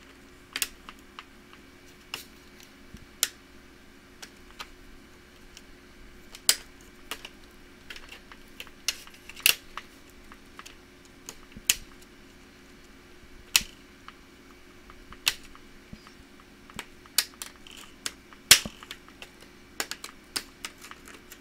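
Sharp plastic clicks and snaps at irregular intervals as a plastic pry tool is worked along the seam of a Toshiba Satellite laptop's plastic base, popping its snap clips loose.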